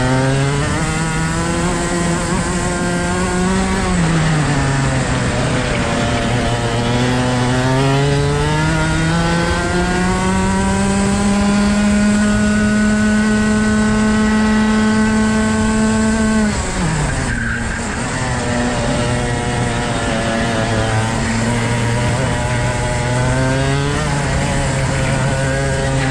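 CRG kart's Rotax Max 125cc two-stroke single-cylinder engine heard from the kart at racing speed. Its pitch climbs under acceleration, drops sharply about four seconds in as the throttle is lifted for a corner, then climbs in a long pull to high revs before falling off sharply about sixteen seconds in; it picks up again near the end.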